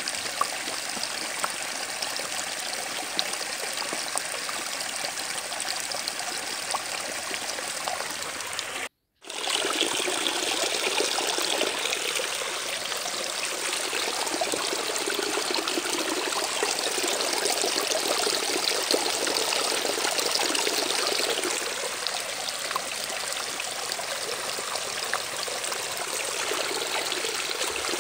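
Steady rushing noise like running water. It cuts out completely for a moment about nine seconds in, then carries on with a slightly different texture.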